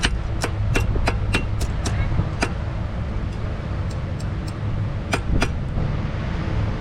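Blacksmith's hammer striking iron on an anvil with short metallic rings: about eight quick blows in the first two and a half seconds, a few faint taps, then two more blows about five seconds in, over a steady low rumble.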